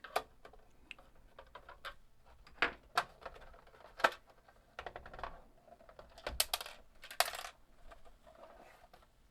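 Handling noise from working on a Commodore 1541-II floppy drive and tools: irregular sharp clicks, knocks and small metallic clinks, several louder ones spread through.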